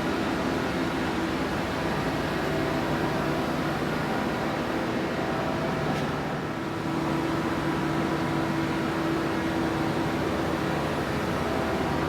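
Mighty Viper VT-27GL CNC lathe running under power: a steady machine hum with a few held tones. A faint click comes about halfway through.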